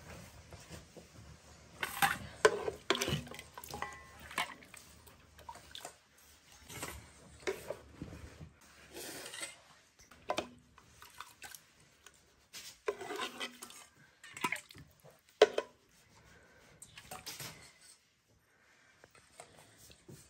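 Steel ladle and stainless steel bowls clinking and knocking together at irregular moments as soup is ladled out of a pressure cooker and served. The loudest clinks come about two to three seconds in and again past the middle.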